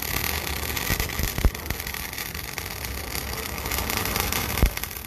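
MIG welding arc crackling and hissing steadily as a bead is run to join a 50 mm shaft, with two sharper pops, one about a second and a half in and one near the end.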